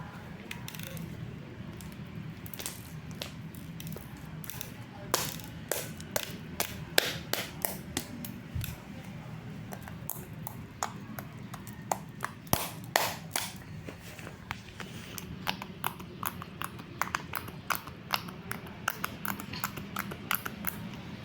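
Slime being squished and poked by hand, making irregular sticky clicks and pops that come quicker and denser in the second half.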